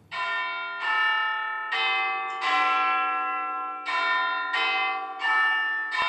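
Tower bells chiming a tune of eight struck notes in two groups of four, each note ringing on into the next.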